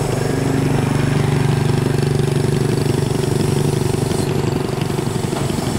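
Mobile crane's diesel engine running steadily under load as it holds up a truck, a continuous low drone.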